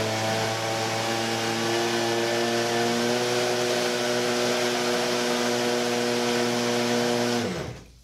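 Electric motor spinning a 3D-printed medium-pitch jet-pump impeller at high speed, a loud steady whine with water churning through the pump; the impeller is unbalanced, which makes it loud. About seven and a half seconds in the throttle is cut and the whine quickly falls away as the impeller spins down.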